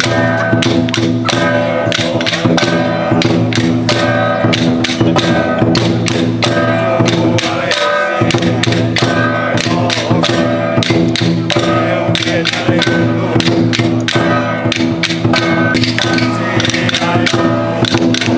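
Temple ritual music: a sustained melody on a wind instrument over fast, steady percussion with wood-block-like taps.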